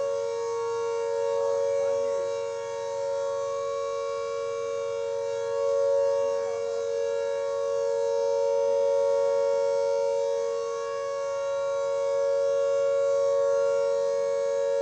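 Civil defence air raid siren sounding a steady high wail that holds one pitch, its loudness swelling and fading every few seconds.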